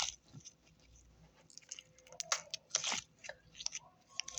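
Jelly cube slime, blue glitter slime with added jelly cubes, being squeezed and worked by hand, giving faint, irregular clicks and crackles.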